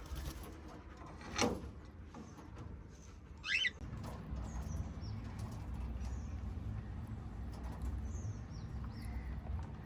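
Pet parrots (a cockatiel and budgies) calling: one short, louder chirp about three and a half seconds in and several faint high chirps after it, with a sharp rustle or knock about a second and a half in. A steady low hum sits under the second half.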